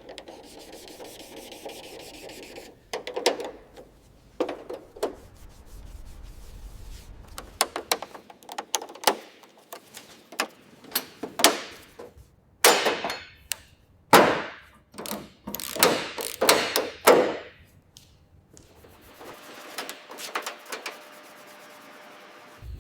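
Hand-tool work on car parts: irregular clicks and knocks mixed with rubbing and scraping strokes, with the longest, loudest scrapes in the second half.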